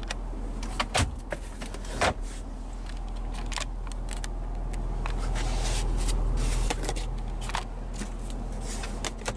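Steady low rumble of road and drivetrain noise inside the Ford F-250 Super Duty's cab, swelling through the middle and easing near the end. A few sharp clicks and knocks in the first two seconds, as the lower glove box is handled and shut.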